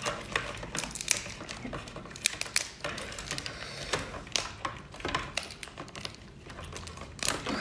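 Cooked lobster shell being twisted and cracked apart by hand: a quick, irregular run of sharp crackles and clicks.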